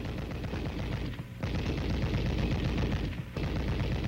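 7.62 mm M73 tank machine gun firing fully automatic, in two rapid bursts with a short break about a second in.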